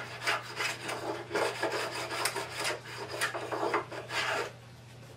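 Small carbide edge plane scraping along the edge of a white oak board in a quick run of short strokes, cutting a round-over. The strokes stop about four and a half seconds in.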